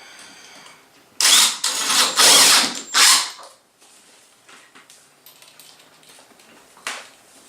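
Power drill driving a screw to fix the shim in place, run in several short bursts over about two seconds starting about a second in, then a few light clicks.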